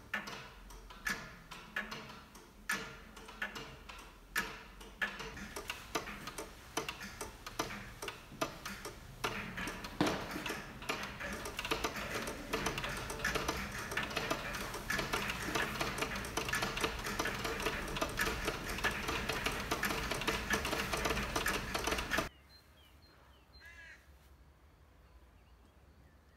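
Old weight-driven pendulum clocks ticking. At first a single clock ticks about once every 0.8 s, then many clocks tick together in a dense, uneven clatter that cuts off suddenly about 22 seconds in. After that, faint outdoor quiet with a short bird call near the end.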